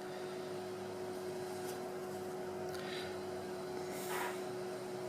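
Room tone: a steady faint hum with a constant tone, with a couple of very faint soft rustles near the middle.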